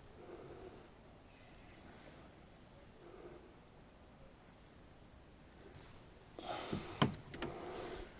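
Spinning reel being wound as the angler plays a fish, with faint mechanical clicking. Near the end there is louder rustling and handling noise with one sharp knock.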